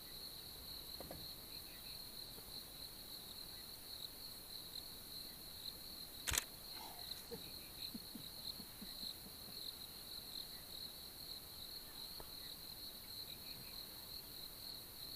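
A steady, unbroken high-pitched insect chorus, as at dusk in the bush. About six seconds in there is one sharp click.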